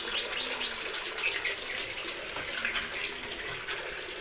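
Small birds chirping in a quick run of high, downward-sweeping notes in the first second, then a few scattered chirps, over a steady hiss like running water.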